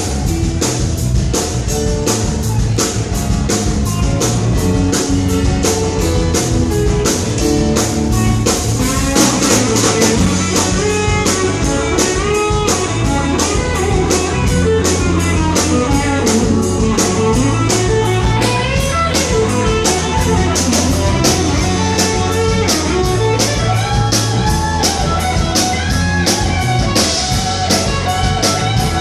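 Blues-rock song in an instrumental passage: a guitar playing lead over a steady drum-kit beat, with no singing.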